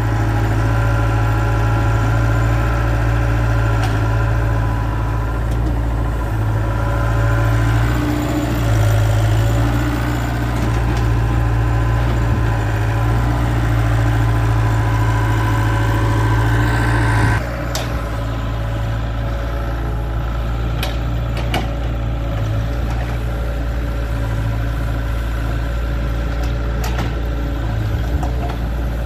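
Doosan DH60 mini excavator's diesel engine running steadily while the bucket digs into soil. The level drops suddenly about two-thirds of the way through, and a few sharp knocks follow.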